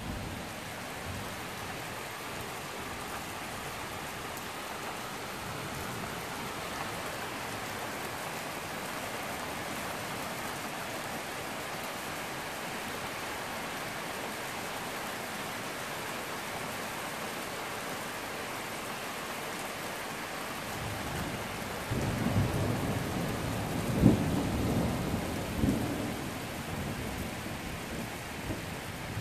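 Steady rain hissing throughout. After about twenty seconds, thunder rumbles in and lasts several seconds, with a few sharper claps, the loudest near the middle of the rumble, before it dies away.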